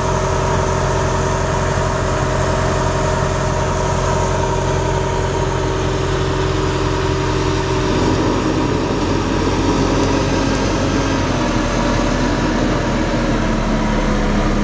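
Fire engine's engine running steadily at the scene, a continuous hum of several steady tones whose pitches shift about eight seconds in.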